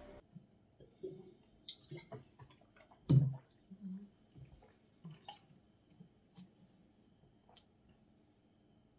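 Sips, swallows and bottle-handling clicks from people drinking from bottles, with one louder thump about three seconds in.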